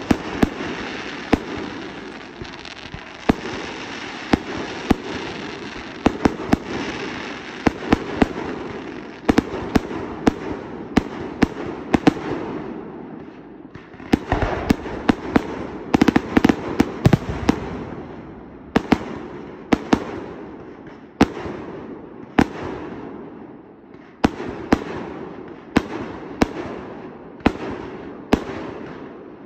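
Aerial fireworks display: a quick run of sharp bangs as shots launch and burst, over a steady crackling hiss. The bangs come thickest about halfway through.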